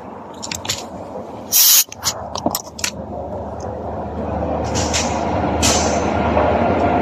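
Small clicks of hands handling a car's wiring connector, with a brief loud hiss about a second and a half in. A steady noise with a low hum then builds up and stays.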